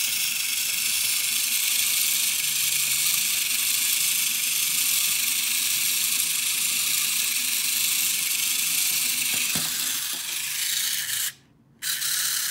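A toy walking robot's small electric motor and plastic gear train running with a steady whirring buzz as they drive its legs. The noise cuts out briefly about eleven seconds in, then resumes.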